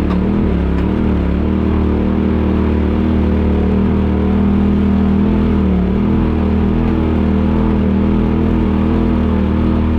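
Polaris RZR turbocharged side-by-side engine running at a steady, moderate speed. Its pitch dips and rises briefly about half a second in.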